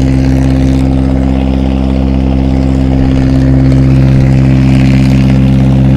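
A 40 hp outboard motor running steadily at idle, one unchanging engine note that grows slightly louder about halfway through.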